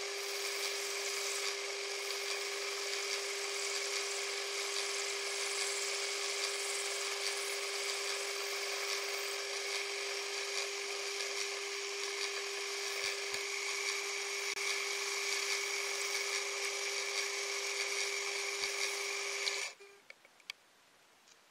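Small benchtop metal lathe running with a steady whine while a hand-held tool grinds into a glass test tube spinning in its chuck, a continuous gritty scraping. Both stop abruptly about 20 seconds in, followed by a few faint clicks.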